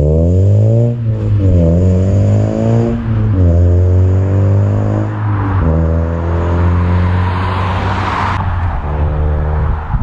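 Honda Civic Si's K24 four-cylinder, breathing through a catless downpipe and a Full-Race cat-back exhaust, accelerating hard away from a standstill: the revs climb and drop at three upshifts, about one, three and five seconds in, then the engine note holds steady as the car pulls into the distance.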